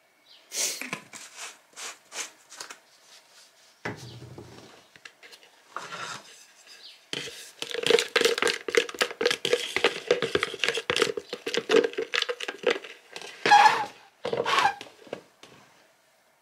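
A wooden stick stirring epoxy in a plastic mixing cup, clicking and scraping rapidly against the cup's sides, densest in the middle, with scattered handling knocks before it and two louder knocks near the end.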